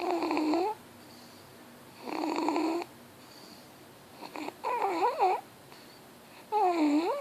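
Snoring: four pitched, wavering snores about two seconds apart, each lasting under a second.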